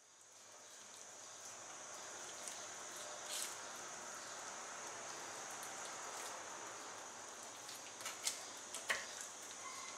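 Steady hiss with a faint high-pitched whine, broken by a few short clicks and taps of a kitchen knife against a wooden cutting board as a raw chicken thigh is boned. There is one click about three seconds in and a cluster near the end.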